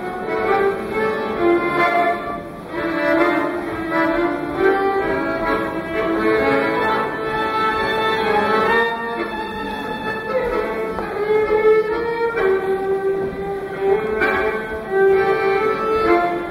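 Live tango duo of violin and bandoneon playing: the violin carries a singing melody of held and sliding notes over the bandoneon's accompaniment.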